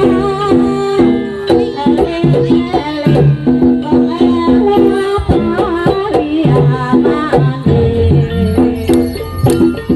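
Jaranan (kuda kepang) ensemble music: drums and rattling percussion under repeated held metallophone-like notes, with a wavering melody line above, playing continuously.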